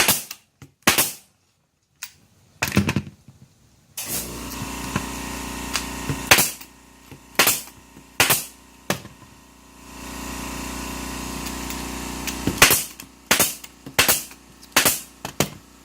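Staple gun firing staples into clean edge plastic fabric track on a board, about a dozen sharp shots, some in quick succession. A steady hum runs underneath from about four seconds in.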